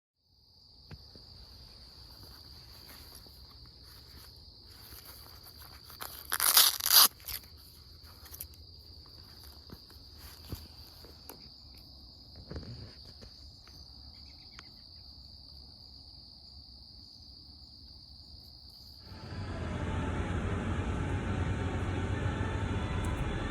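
Steady high-pitched insect drone outdoors, with scattered clicks and a loud crunching noise about six to seven seconds in. Near the end a louder, even rumbling noise takes over.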